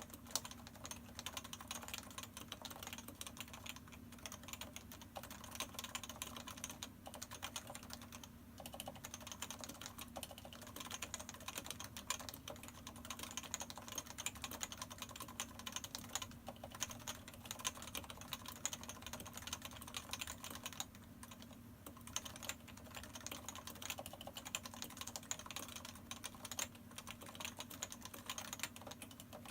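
Continuous typing on a Topre Realforce 104U electrostatic-capacitive keyboard with 45 g uniform key weighting and dye-sub PBT keycaps: a fast, dense run of keystrokes with a few brief pauses. The sliders are factory-stock and unlubricated; the stabilizers are lubed with Krytox 205.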